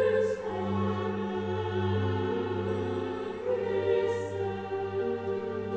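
Orchestral music with a choir, holding long sustained chords that change slowly.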